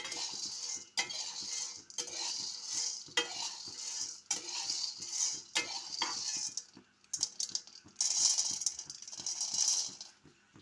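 Green coffee beans being stirred and scraped around a metal pan with a perforated metal spatula during hand roasting: a rattling scrape about once a second, then a longer, louder stir near the end.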